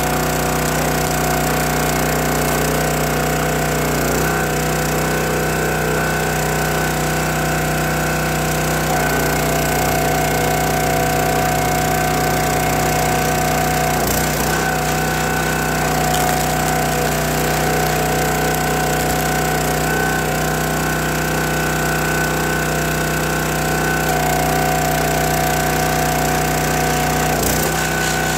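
Small gas engine of a County Line hydraulic log splitter running steadily at working speed while logs are split. Its note shifts a few times, around 4, 9, 14 and near the end of the stretch, as the ram cycles under load.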